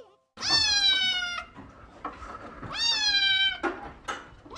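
Grey-and-white kitten meowing: two long, loud meows about two seconds apart, each rising in pitch at the start, then holding steady and dropping slightly at the end.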